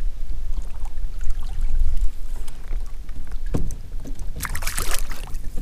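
Handling and water noise of a fishing kayak: a steady low rumble, a single knock about three and a half seconds in, and a brief splashy hiss shortly after.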